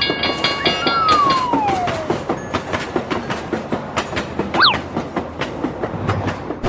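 Animated train sound effect: a rapid clickety-clack of wheels running over rail joints. A tone slides down in pitch during the first couple of seconds, and a short rising whistle-like glide comes just past the middle.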